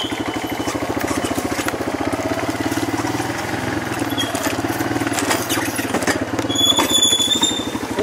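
An ATV engine running steadily at low speed while the quad rides along a dirt trail, with an even pulsing putter. A short high squeal cuts in for about a second near the end.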